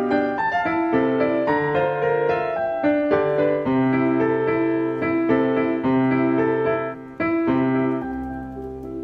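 Background piano music, a steady run of single notes and chords; it drops to a quieter, lower passage near the end.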